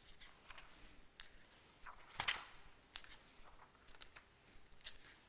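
Quiet room tone with scattered faint clicks and small handling noises, the loudest a short sharp click about two seconds in.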